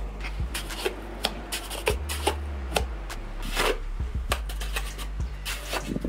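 Irregular scrapes and knocks of a trowel working wet mortar, over soft background music.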